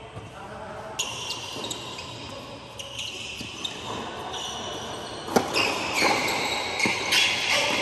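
Tennis ball bouncing and being struck by rackets during a doubles point: a few light taps early, then a rally of hits, the loudest a little past the middle. The hits echo in a large indoor hall.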